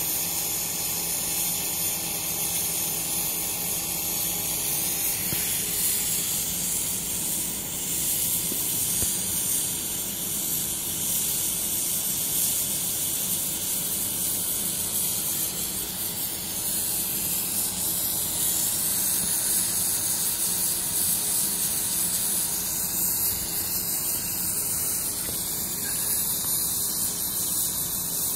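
Oxy-fuel cutting torch on a motorized bevel-cutting carriage, its gas jet hissing steadily as it cuts through steel plate, over a faint low hum. The hiss grows a little stronger about five seconds in.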